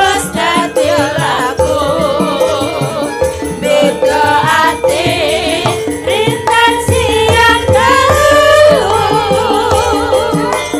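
Javanese sinden (female singers) singing with wavering vibrato over a gamelan ensemble, with metallophones ringing and kendang drums beating.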